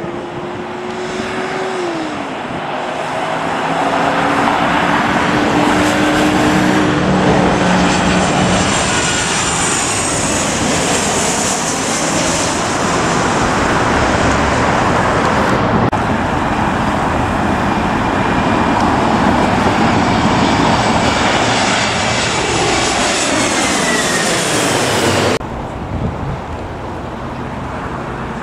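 Twin-engine jet airliner on landing approach passing low overhead: a loud jet noise builds up, and its engine whine drops in pitch as it goes by. It cuts off suddenly near the end, leaving quieter steady road traffic noise.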